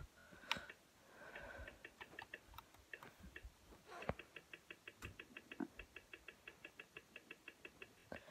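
Faint, rapid, evenly spaced ticking, about five ticks a second, starting around halfway in, after a few scattered soft clicks and knocks.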